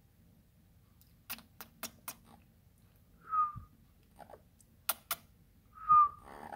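Parrot giving two short whistled notes, the second louder and slightly falling, with a few sharp clicks between them: a quick run of four, then two more.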